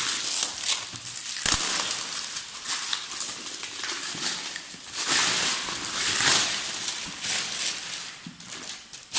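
Plastic and cardboard packaging crinkling and rustling in swells as a sealed box is opened, with one knock about one and a half seconds in.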